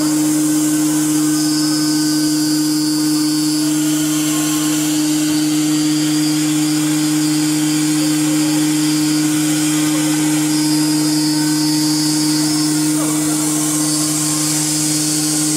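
A 5-axis CNC machining center's spindle milling and drilling a thick aluminium profile: a steady spindle hum under a hissing cutting noise, with a higher-pitched edge that comes in twice.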